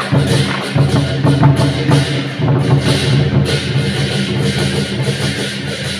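Loud, lively music driven by drums and percussion, accompanying a lion dance.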